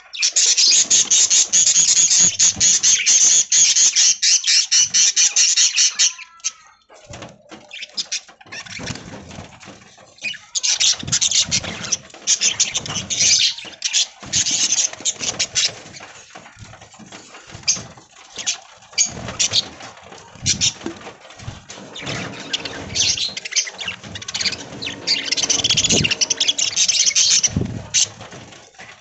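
A flock of budgies chattering and chirping: a loud, dense chorus for the first six seconds, then scattered bursts, with another loud spell near the end.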